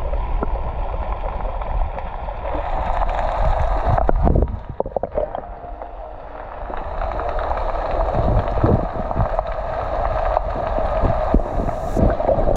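River water rushing and gurgling close to the microphone, with irregular bumps and knocks; it drops away briefly about four and a half seconds in, then builds again.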